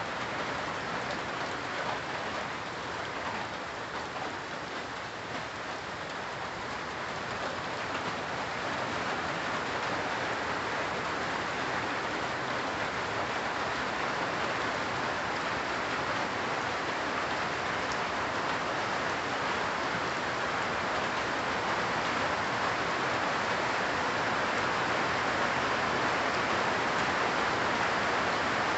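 Steady rain falling on leafy trees and shrubs, an even dense patter that grows gradually louder.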